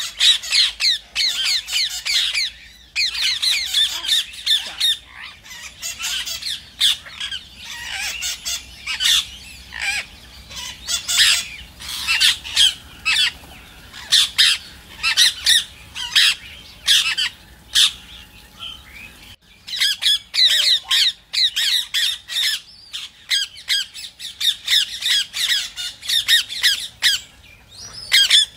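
Rose-ringed (Indian ringneck) parakeets calling: a rapid, continuous run of shrill squawks and chattering, with a brief lull about two-thirds of the way through.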